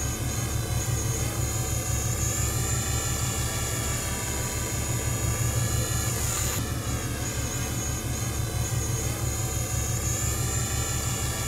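A boat's engine running steadily with an even low throb, heard from on board. Its pitch dips and recovers briefly about six seconds in.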